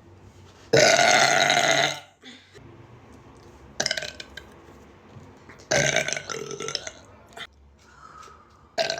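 A woman lets out a long, loud burp about a second in, lasting over a second. Shorter bursts of sound follow later.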